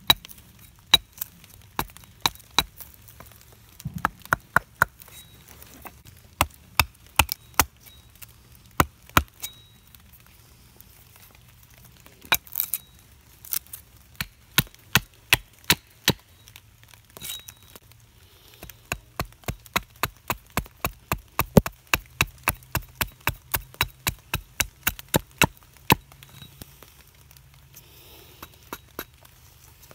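Carving axe hewing a green sugar maple spoon blank held upright on a chopping stump: sharp chops in quick runs of about two to four a second, broken by short pauses.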